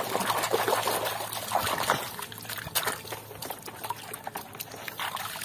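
Muddy water sloshing and splashing in a metal basin as a hand churns and scrubs a small plastic toy airplane under the surface, with irregular splashes and drips.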